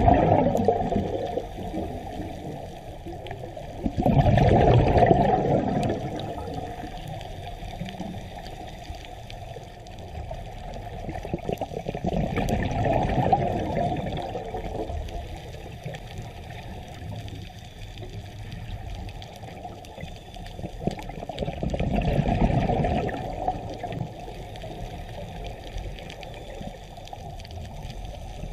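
Scuba diver breathing through a regulator underwater: bubbly, gurgling bursts of exhaled air four times, several seconds apart, with steady water noise between.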